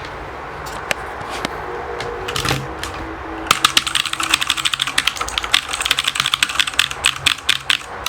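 Typing on a mechanical keyboard: a few scattered keystrokes, then a fast, steady run of typing from about three and a half seconds in.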